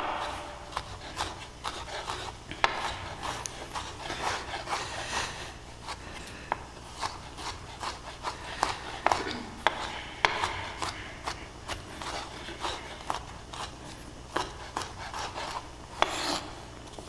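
Chef's knife mincing garlic on a wooden cutting board: irregular short knife strikes on the board, a few a second, with the blade rubbing and scraping between them.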